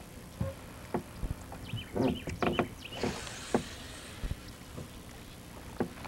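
Scattered knocks and clunks of things being handled in a small fishing boat, with a short rush of hiss about three seconds in.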